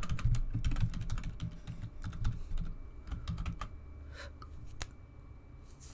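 Typing on a computer keyboard: a quick run of keystrokes, thinning after about three and a half seconds to a few single clicks.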